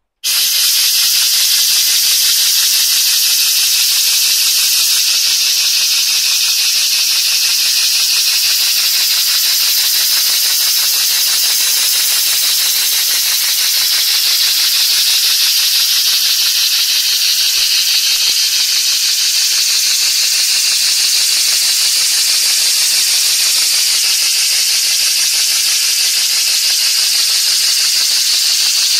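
Model horizontal mill engine with a brass cylinder running on compressed air: a steady, even hiss of air exhausting from the cylinder, starting abruptly right at the start.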